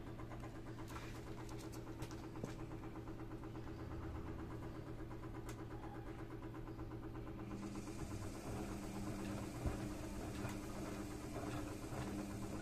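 Edesa front-loading washing machine starting its spin cycle with a broken drum spider: a steady low mechanical hum throughout. About seven and a half seconds in, a hiss and a second, pulsing hum join it as the drum begins to turn.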